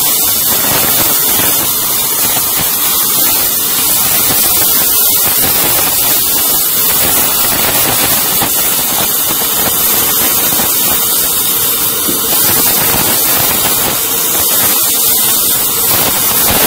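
Welding on a steel jug: a loud, steady hiss with fine crackling, from a gas welding torch flame and stick arc welding.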